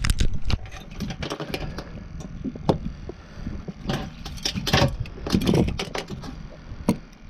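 Knocks, clinks and rattles as a fish stringer is taken out and handled in a boat, over a steady low rumble.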